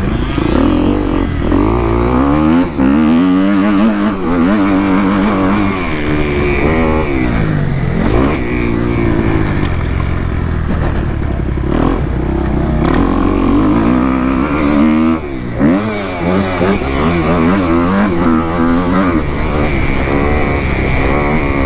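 Kawasaki KX250F's four-stroke single-cylinder engine being ridden hard round a motocross track. It revs up and drops back again and again through throttle changes and gear shifts, with brief drops near 3 s and 15 s. A low rumble of wind buffets the microphone throughout.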